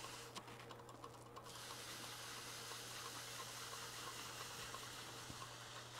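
Faint, steady hum of a wood lathe turning slowly, with a soft hiss of a wet Micro-Mesh pad polishing the CA finish on the spinning piece.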